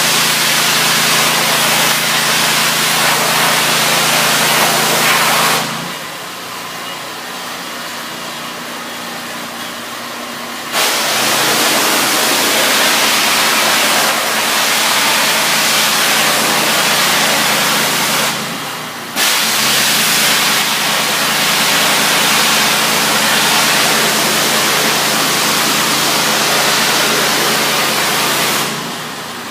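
Steam pressure washer spraying through its wand, a loud steady hiss that stops about six seconds in, resumes about five seconds later, breaks off briefly, then runs until it stops shortly before the end. The machine's engine runs steadily underneath, plainer while the spray is off.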